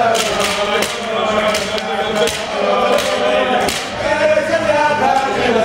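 A group of men singing together in a loud chant-like song, with many sharp clicks scattered through it.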